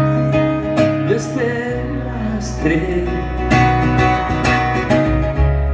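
Live band playing the instrumental intro of a pop-rock song: a strummed acoustic guitar over bass and drums, with regular drum and cymbal hits.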